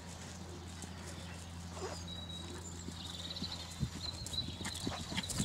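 Grey horse's hooves cantering on grass turf, dull scattered thuds over a steady low hum that stops about two-thirds of the way in.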